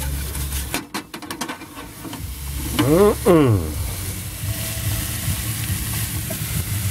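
A few clatters as a frying pan of cubed raw steak goes onto the gas stove, then the beef sizzling steadily in the hot pan from about two seconds in.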